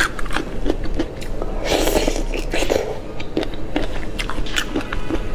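Close-miked eating sounds of shrimp in chili sauce: wet clicks and crackling as the shell is pulled off by hand, then chewing and mouth clicks, with a denser crackly stretch around the second second.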